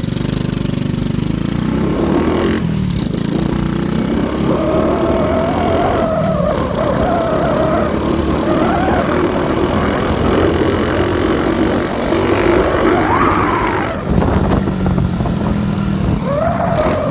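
Motorcycle engine running under way, its pitch climbing and dropping back several times as the rider opens and closes the throttle, over a steady low rumble.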